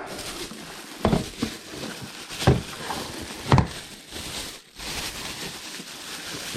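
Rice cooker packaging being handled and pulled open: a steady rustle with three knocks about a second apart.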